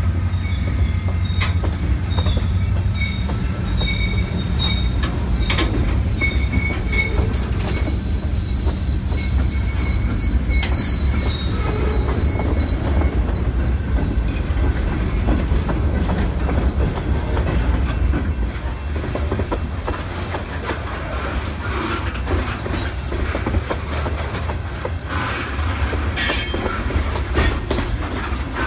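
Freight train of covered hoppers and boxcars rolling past at close range: a steady low rumble of steel wheels on rail with scattered clicks over the joints. A thin, high-pitched wheel squeal runs through roughly the first twelve seconds, then fades out.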